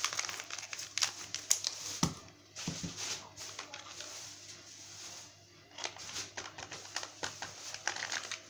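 Plastic sachet of powdered milk crinkling and crackling as it is handled, torn open and squeezed out over a bowl, with a couple of short pauses.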